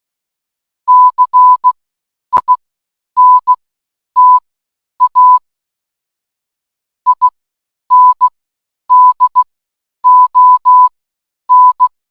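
Computer-generated Morse code beeps from an online text-to-Morse converter: a single steady-pitched tone keyed on and off in short dots and longer dashes, grouped into letters, with a longer pause near the middle between words. A sharp click sounds about two seconds in.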